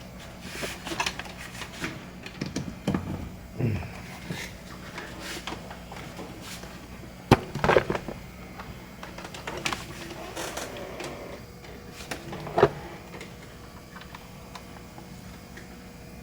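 Scattered clicks and knocks from handling a repaired laptop charger and its plugs while setting up a power test, with a sharp click about seven seconds in and another about twelve seconds in.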